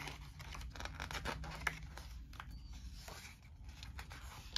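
Paper pages of a scenario booklet being turned and handled: faint rustles and light ticks.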